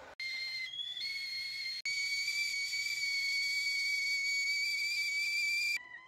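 Stainless steel stovetop kettle whistling at the boil: one steady high-pitched whistle that wavers in pitch during the first second, then drifts slightly upward and cuts off just before the end.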